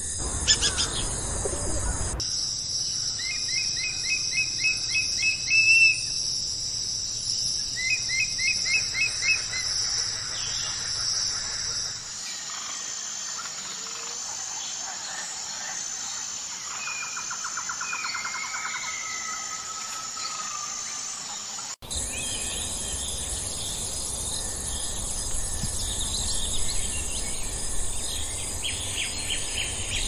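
Nature ambience of birds and insects: a steady high insect drone with repeated bird trills and scattered bird calls. The background changes abruptly three times, about two, twelve and twenty-two seconds in, where different recordings are joined.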